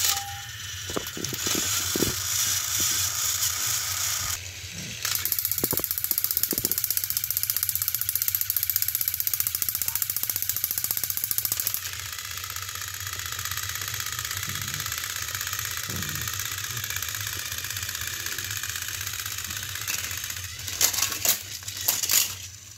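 Battery-powered Thomas & Friends toy engines whirring and rattling as their motors drive geared wheels along plastic track, two engines pushing against each other. The whir changes at about 5 seconds and again at about 12 seconds as new pairs run, and near the end a few sharp clatters come as an engine tumbles off the track.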